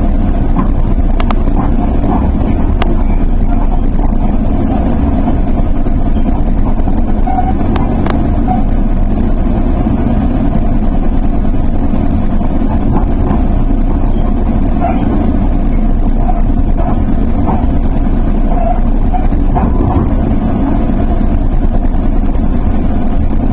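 Steady rumble of a Sounder commuter train running along the track, heard from inside a passenger coach.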